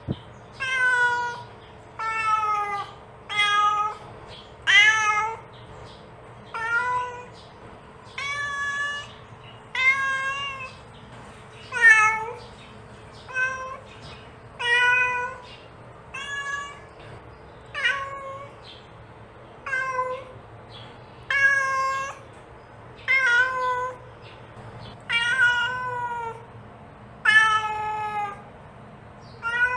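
A mother cat meowing over and over to call her kittens: short, pitched meows that rise and fall, one every one and a half to two seconds.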